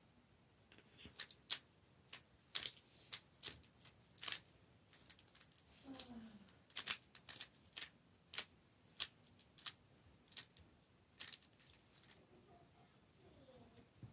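Plastic 3x3 speed cube being turned by hand: a fast, irregular run of sharp clicks and clacks as the layers snap round.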